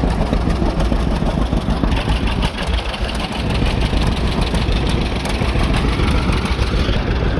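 Engine running steadily, with a fast, even firing pulse.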